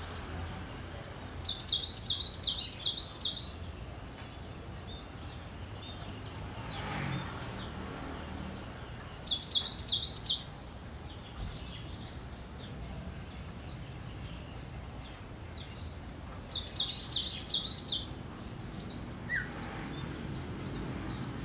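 Caged cinereous tit (gelatik batu) singing: three bursts of fast repeated high notes, a few seconds apart, with softer notes in between.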